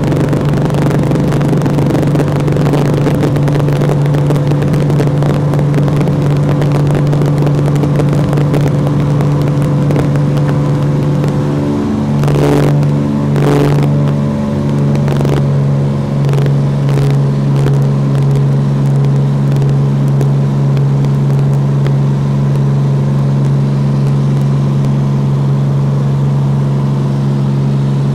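Single-engine Cessna's piston engine and propeller droning steadily, heard from inside the cabin. About twelve seconds in the engine note wavers and shifts for a few seconds, with a few rattles, then settles back to a steady drone.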